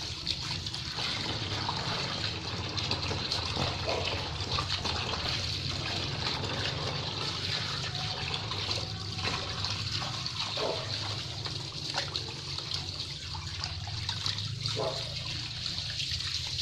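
Water running from a tap into a plastic basin of water, splashing steadily, with small sloshes as a large snakehead fish is scrubbed and rinsed by hand.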